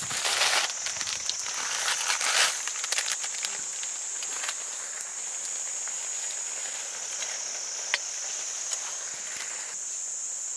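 Insects chirring steadily at a high pitch, with rustling and a few small clicks and knocks near the start and a single sharp click later on.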